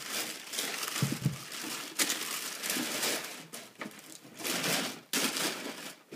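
Tissue paper, some of it waxed, crinkling and rustling in several bouts as a sneaker is pulled out of its box, with a short dull thump about a second in.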